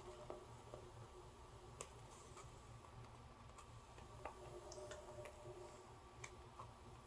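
Near silence with a few faint, scattered clicks as small plastic snap-button parts are handled and fitted into a denim piece, over a faint steady hum.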